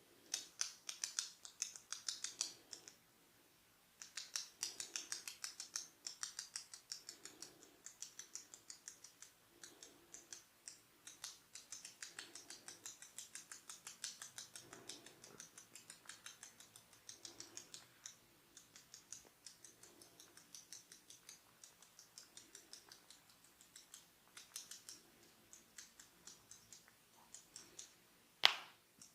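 Barber's hair cracking: quick, crisp snaps of the hair at the scalp, about five or six a second, with a short break about three seconds in and one sharper, louder snap near the end.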